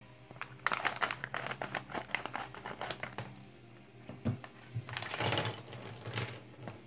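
Scissors snipping across the top of a foil-plastic Playmobil blind bag, a quick run of sharp crackles. After a knock about four seconds in, the bag crinkles as it is tipped and shaken to empty out the figure's plastic parts.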